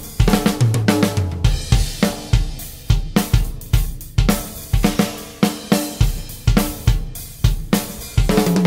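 Drum kit played in a steady groove: bass drum kicks about twice a second under snare hits, hi-hat and cymbals, with a low pitched drum ringing briefly about a second in.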